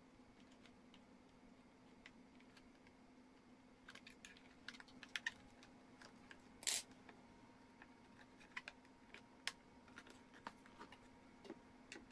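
Scattered light clicks and taps of hard plastic as the rear cover of a steam iron is pressed back into place, with one louder click about two-thirds of the way through.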